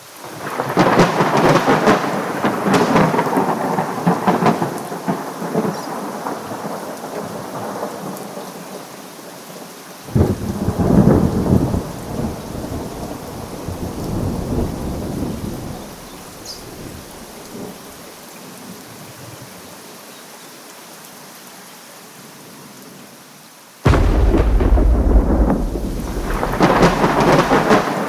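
Thunder from nearby lightning strikes over steady rain. A sharp crackling clap fades into a long rumble, a second deep rumbling clap comes about ten seconds in, and a sudden loud clap near the end.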